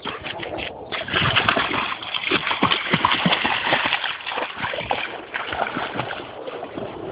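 A Northern Inuit dog splashing through river water: loud, irregular splashing that starts about a second in and eases off near the end.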